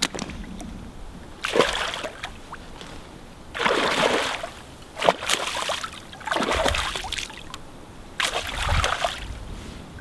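A hooked pike thrashing at the surface in shallow water, splashing in about five separate bursts of up to a second each.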